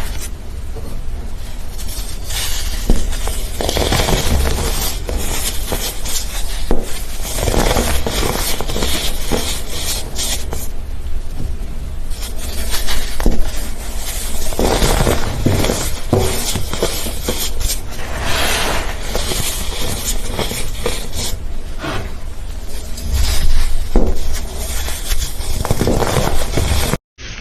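Slime being worked by hand: continuous squishing with dense crackling and popping clicks and swells of scraping noise. The sound cuts off abruptly just before the end.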